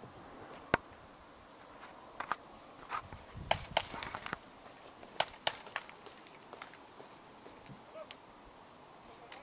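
Airsoft guns firing, heard as sharp, irregular clicks and snaps: one loud one about three-quarters of a second in, then a scattered run of them between about 2 and 8 seconds.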